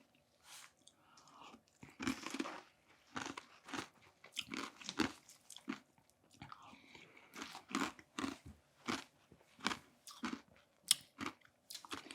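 A person eating halo-halo close to the microphone, with irregular chewing and crunching mouth sounds.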